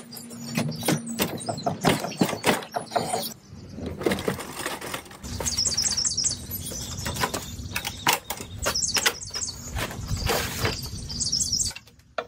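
A Ridgid R4513 jobsite table saw on its wheeled folding stand being tilted and rolled: the steel stand rattles and clanks in a string of knocks, with a steady rumble of the wheels rolling over the floor from about five seconds in, stopping shortly before the end.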